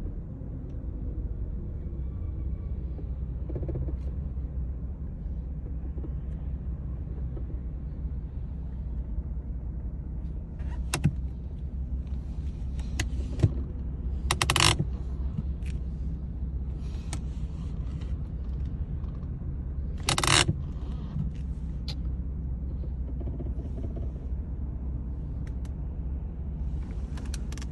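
Ford Mustang running with a steady low rumble. A few sharp clicks are scattered through it, with two brief louder noises about 14 and 20 seconds in.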